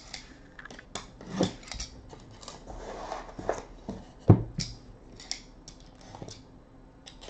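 A sealed cardboard box of trading cards being opened by hand: cardboard scraping, rubbing and sliding with scattered small clicks as the seal is cut and the box pulled apart. One sharp knock a little over four seconds in.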